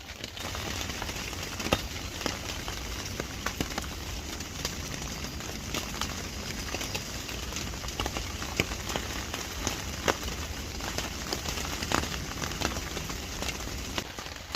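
Steady rain falling, with many sharp taps and ticks of drops scattered through it.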